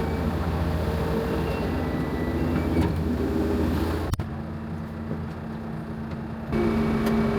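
A vehicle engine running steadily with a low hum. About four seconds in there is a sharp click and the sound changes abruptly, and near the end a louder, steady drone sets in.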